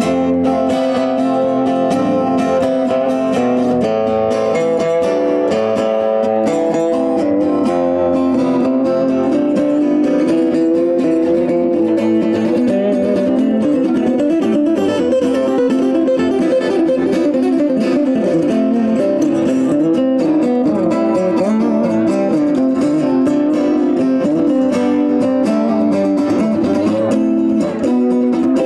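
Two acoustic guitars played together in an instrumental passage, strummed and picked, with a continuous run of chords and melody notes.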